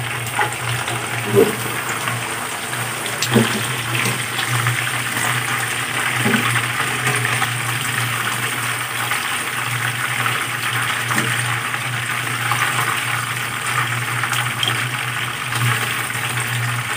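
Chicken pieces deep-frying in hot oil in a wok: a steady sizzling crackle of bubbling oil. A few light clicks of the tongs turning the pieces come in the first few seconds, over a steady low hum.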